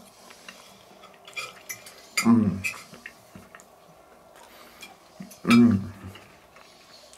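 A person eating meat off a fork: small clicks of the metal fork and quiet chewing. A short voice sound comes twice, about two seconds and five and a half seconds in.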